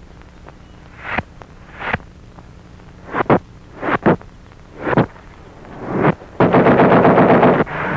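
Old cartoon soundtrack sound effects: a series of sharp pops and knocks spread out over several seconds, then about a second of rapid rattling near the end.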